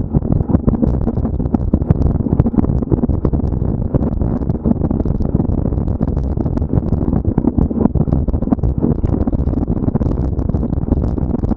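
Steady low rumble of wind buffeting the microphone, with many irregular clicks and rattles throughout, as from a camera carried along a cross-country trail at speed.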